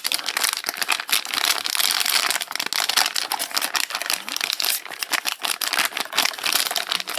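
Plastic food sachet crinkling and rustling continuously with dense small crackles as it is handled and emptied, stopping abruptly at the end.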